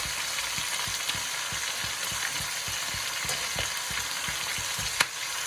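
Onions, ginger, garlic and chilli sizzling as they fry in hot oil in a pan, a steady hiss, with a sharp click about five seconds in.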